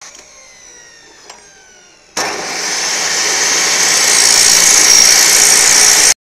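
Abrasive chop saw (cut-off saw) wheel grinding through a metal pipe: a loud, steady, high-pitched hiss that starts suddenly about two seconds in and stops abruptly near the end. Before it, a faint whine falls in pitch.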